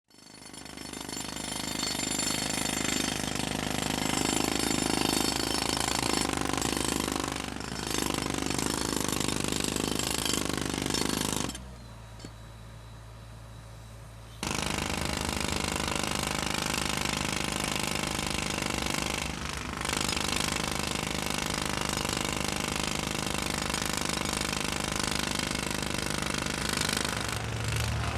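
Construction jackhammer hammering continuously, its rapid impacts breaking up a hard surface. About halfway through it stops for roughly three seconds, leaving only a low steady hum, then starts hammering again.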